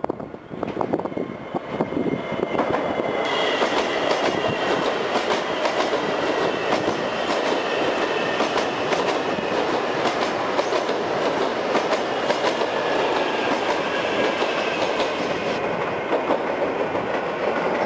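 CSR electric multiple unit train passing close by, its wheels clicking over the rail joints, with a high whine that slowly falls in pitch from about three seconds in.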